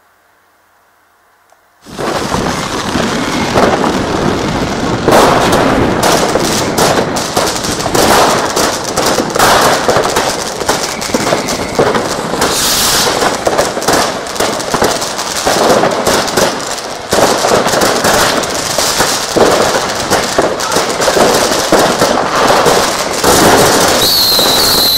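Weco Laser fountain battery burning: after a quiet start, it bursts into a loud, continuous dense crackling and hissing of sparks, thick with rapid pops. A short falling whistle comes near the end.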